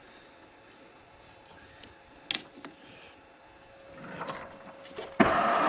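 A sharp metallic clink and some light handling of parts, then near the end a machine starts abruptly and runs steadily and loudly, most likely the metal lathe switched on to cut the sprocket's bore.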